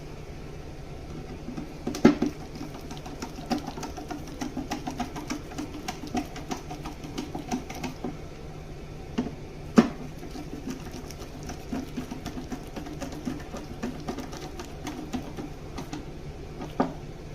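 Irregular clicks and small knocks of a metal cabinet hinge being fitted and its screws driven, with sharper knocks about 2 seconds in and about 10 seconds in, over a steady low hum.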